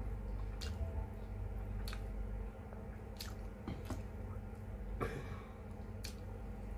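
Close-miked chewing of stewed fish, with wet mouth clicks and smacks about once a second and a squelchier burst about five seconds in, over a steady low hum.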